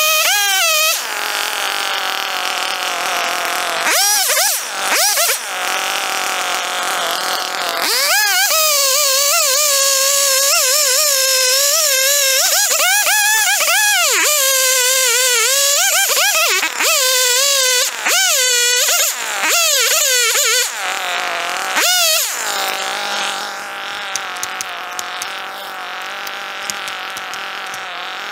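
Two-stroke chainsaw cutting through a tree trunk at full throttle, its pitch sagging and recovering under load. It drops briefly toward idle several times, then settles into a low idle for the last few seconds.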